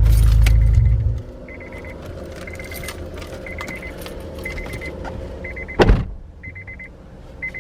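Car engine idling, then switched off about a second in. Once it stops, the key-in-ignition warning chime beeps in short trains about once a second. A single loud thump comes near the six-second mark.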